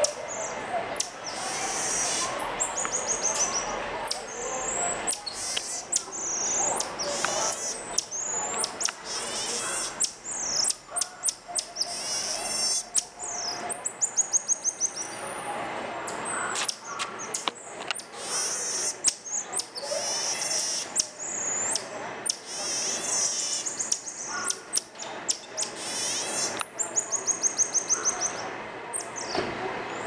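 Common marmoset calling: a string of very high-pitched calls, with short sharp chirps, brief whistles that slide up or down, and several rapid trills of quick repeated notes.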